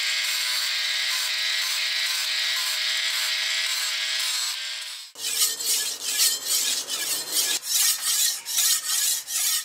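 Angle grinder running with its abrasive disc on the steel rebar spine of a forged cleaver, a steady whine and hiss that stops about five seconds in. Then the cleaver's blade is drawn back and forth across a wet whetstone in sharpening strokes, about two to three a second.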